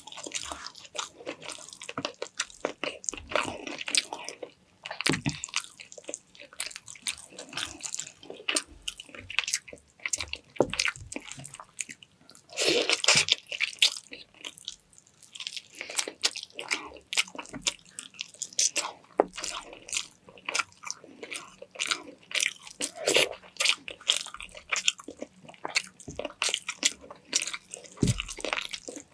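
A person eating close to the microphone: irregular chewing, bites and crunches with many small wet mouth clicks.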